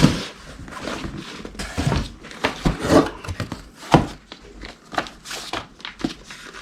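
Piston box and packaging being handled: a run of irregular light clicks, knocks and rustles.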